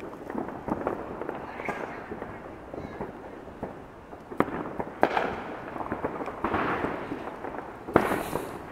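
Fireworks and firecrackers popping and cracking in a scattered series, with sharper bangs about four and a half and five seconds in and the loudest crack near the end.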